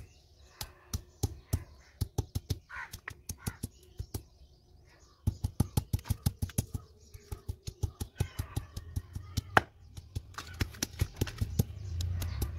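Stone pestle pounding food on a flat stone grinding slab (sil-batta): repeated sharp stone-on-stone knocks, about three a second at first, then faster and louder from about five seconds in.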